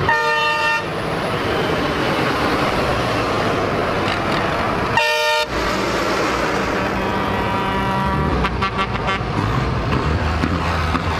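Tractor horns honking over the steady running of passing diesel tractor engines. There is a short blast right at the start, another about five seconds in, and a quick run of short toots about eight and a half seconds in.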